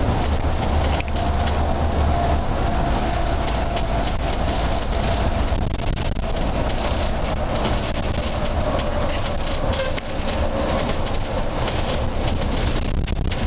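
Cabin noise of an intercity bus under way: steady engine drone and road rumble with rattling clicks and a whine that slowly falls in pitch.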